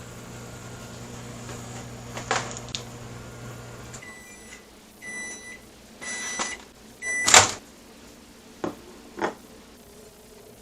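Microwave oven running with a steady hum, with a knock about two seconds in. The hum stops about four seconds in, and the oven beeps several times to end its cycle. A loud click and two lighter knocks follow.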